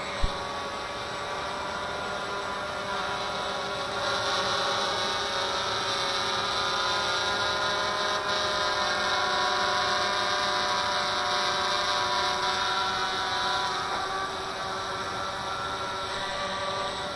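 Walkera QR X350 Pro quadcopter's brushless motors and carbon propellers running in hover, a steady many-toned whine that wavers slightly in pitch. A short click just after the start, and the whine gets a little louder about four seconds in.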